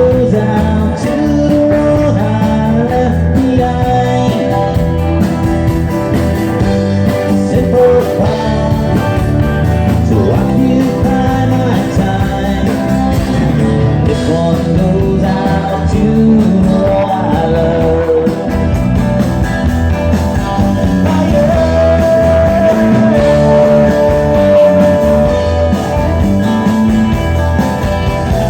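Live rock band playing a song with a lead vocal.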